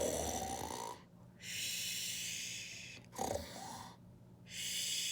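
A woman imitating snoring: two slow cycles, each a short low rumbling snore on the in-breath followed by a long breathy hiss on the out-breath.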